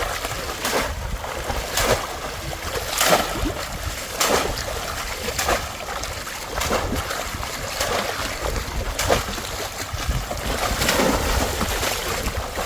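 Splashes in shallow water about once a second, as a bamboo polo trap is plunged down over and over to catch fish.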